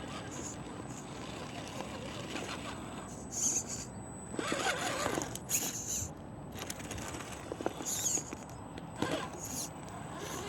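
Radio-controlled rock crawler driving over rough ground, with several short bursts of scraping and crunching from about a third of the way in.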